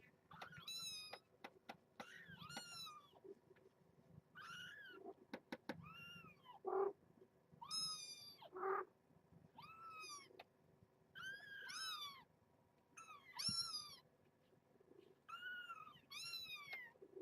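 Young kittens meowing again and again in high-pitched squeaks that rise and fall, about one every second or two, with a couple of lower, shorter calls among them.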